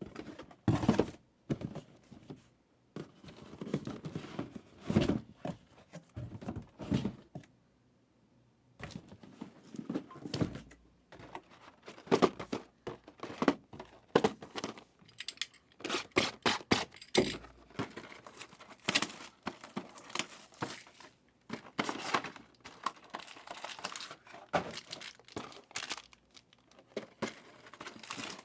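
Trading card pack wrappers being torn open and crinkled, with cards and packs handled and set down in short irregular rustles and light thunks, pausing briefly about eight seconds in.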